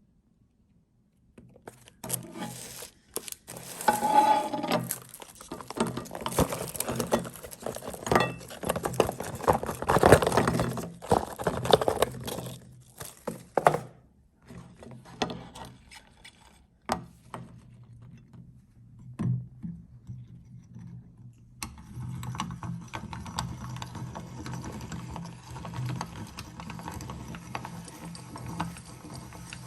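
Meat grinder crushing hard chocolate balls: dense cracking and crunching for about twelve seconds, then scattered cracks. Near the end the grinder runs steadily with a low hum.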